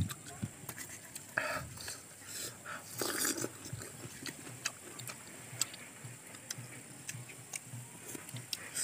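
Close-up eating of star fruit: irregular wet mouth clicks and smacks with a few short crisp crunches of biting into the fruit, over a faint steady high-pitched buzz.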